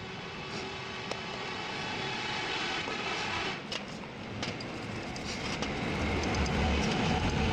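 A vehicle engine running steadily, with a faint high whine partway through and a few light clicks; a lower rumble grows louder near the end.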